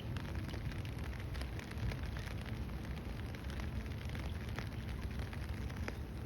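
Steady rainfall: an even hiss with many scattered short drop ticks over a low rumble.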